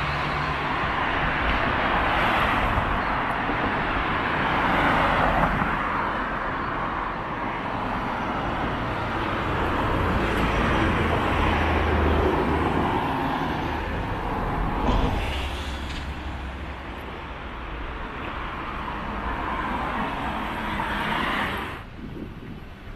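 City street traffic: cars and heavier vehicles passing close by, the noise swelling and easing as they go, then dropping suddenly near the end.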